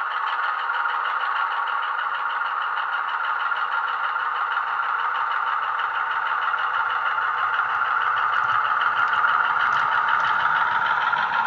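DCC sound decoder playing a Class 35 Hymek diesel's Maybach engine sound (Legomanbiffo sound file) through a small 26x14x7 bass-enhanced speaker in a moving model locomotive. The engine sound runs steadily with a fast, even pulsing beat, a low hum joins about two seconds in, and it grows slightly louder near the end.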